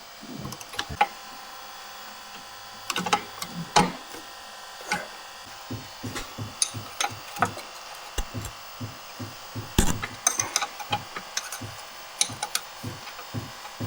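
Hand tools working on a transmission's shift linkage: a few loud metal knocks, then from midway an irregular run of sharp clicks and knocks, about two or three a second, as the linkage is unbolted and its clips worked off.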